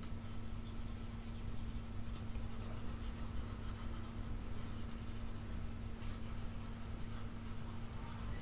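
Stylus scratching and tapping on a pen tablet in quick short strokes, erasing handwritten digital ink, over a steady low electrical hum.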